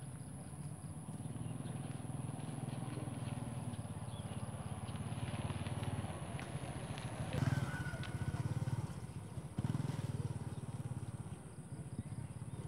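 A steady low engine hum, with a brief sharper sound about seven and a half seconds in.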